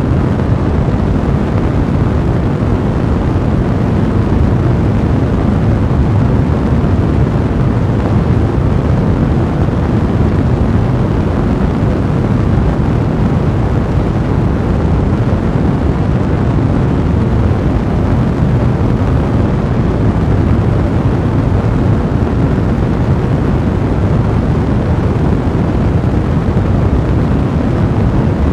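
A blazing fire's steady, low roar, an even rumbling rush of flame with no single crackle standing out.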